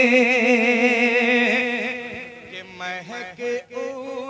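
A lone male voice sings a line of an Urdu sehra (wedding poem) through a microphone. He holds a long note with a wavering vibrato that fades about two seconds in, then sings a few short notes.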